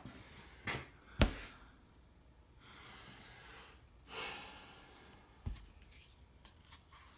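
A sharp knock a little over a second in, with a lighter tap just before it and another about five and a half seconds in, and a breathy exhale around four seconds.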